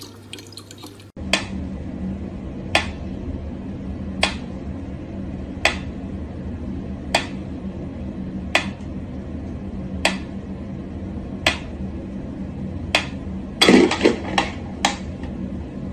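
Mechanical pendulum metronome ticking slowly, one sharp click about every second and a half, over a steady low hum. Near the end a short, louder burst of noise breaks in, followed by a couple of closer-spaced clicks.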